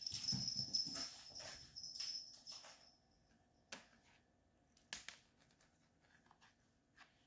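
Light scrabbling and scraping on a laminate floor for the first three seconds, kitten paws and a wand toy's fabric lure dragged across it, with a faint steady high whine underneath. After that, a few isolated soft taps.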